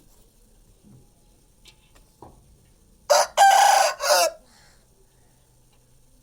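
A rooster crowing once, a loud call of a little over a second starting about three seconds in.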